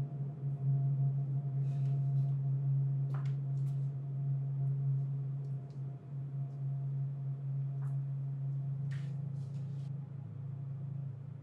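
A steady low drone from the film's soundtrack, holding one pitch with fainter higher tones above it, easing off a little near the end. A few faint soft clicks, with a short hiss about nine seconds in.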